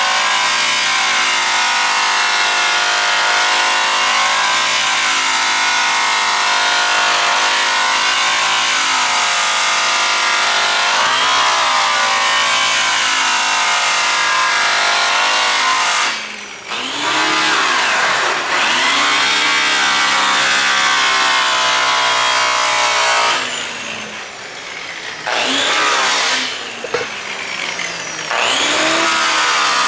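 High-speed angle-grinder-type rotary polisher with a cloth buffing wheel, running against a bare aluminum driveshaft as compound is buffed in. The motor whines steadily, and in the second half its pitch drops and climbs back up a few times as it slows and speeds up again.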